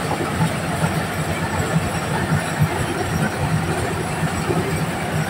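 Diesel-engined corn sheller running under load as corn cobs are fed into it: a steady engine drone with the continuous clattering rattle of the threshing drum and pouring kernels.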